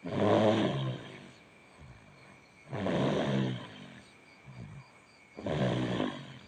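A small child snoring in sleep: three loud snores about every two and a half to three seconds, each lasting about a second, with quieter breaths between.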